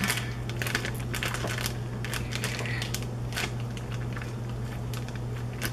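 Plastic zip-top bag crinkling and crackling in irregular bursts as hands press down on it to squeeze the air out, over a steady low hum.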